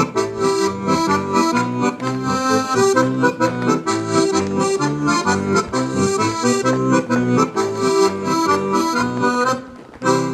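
Accordion playing a lively folk dance tune with a steady pulsing bass under the melody; the tune stops near the end with one short final chord.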